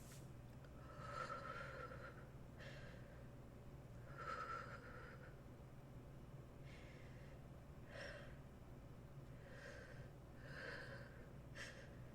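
A person breathing faintly in short, audible breaths and gasps, about eight of them, a second or two apart.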